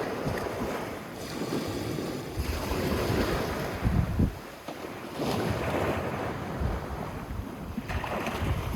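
Sea waves washing in and out on a sandy beach, swelling and ebbing every few seconds, with wind buffeting the microphone in gusts.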